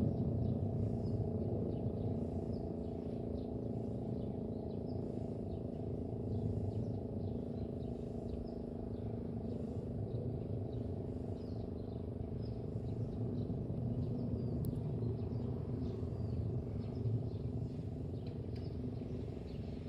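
A steady low drone of several held tones fades slowly, with small birds chirping faintly over it.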